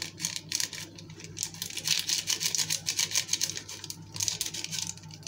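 Paper sachet of baking powder crinkling and ticking as it is shaken and tapped to empty the powder into a bowl, in quick irregular rustles with a shorter spell near the end.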